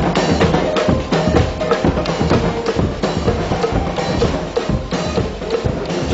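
Large rope-tensioned bass drums and other parade percussion pounding a fast, dense rhythm, several strikes a second.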